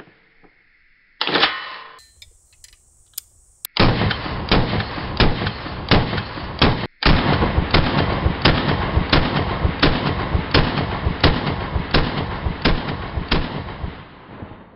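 FoldAR MoBetta AR-15 rifle in .223 Wylde firing: a single shot about a second in, then rapid semi-automatic fire from about four seconds in at roughly three shots a second. The echo rings between the shots, and there is a momentary break near the middle.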